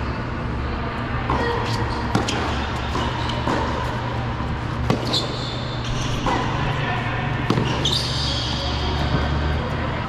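A tennis rally on an indoor hard court: the ball is struck by rackets and bounces, sharp hits coming about every second or second and a half and carrying in a large hall, over a steady low hum. Two short rising squeaks come about five and eight seconds in.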